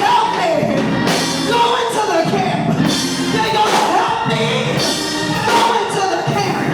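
Church music: singing over a band of instruments, with drums.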